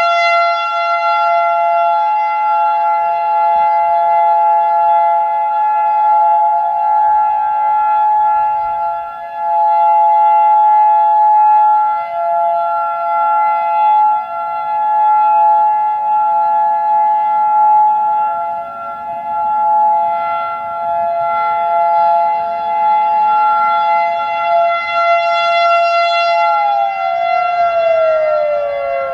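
Several outdoor warning sirens sounding a steady alert signal, led by a nearby Federal Signal 2001-DC dual-tone siren and a Modulator 4016B. Their sustained chords swell and fade every few seconds. Near the end one siren starts to wind down, its pitch falling as the 3-minute alert ends.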